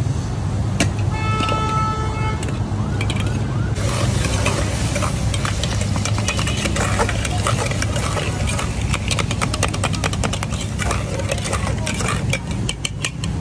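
Metal tongs clinking and scraping against small aluminium chainaki pots, many quick sharp clicks from about four seconds in, over a steady low rumble. A short high tone sounds about a second in.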